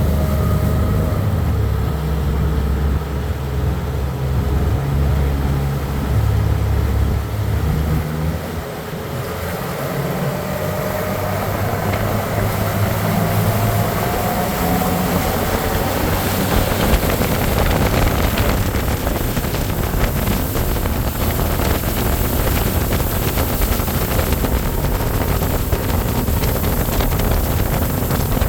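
Outboard motor of a fishing boat running under way. A faint rising whine comes in partway through, and over the second half wind and water rush grow to cover the motor.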